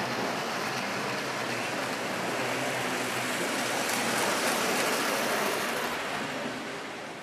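O gauge three-rail model passenger trains rolling on metal track: a steady rolling noise that swells to its loudest as a train passes close about four to five seconds in, then eases off.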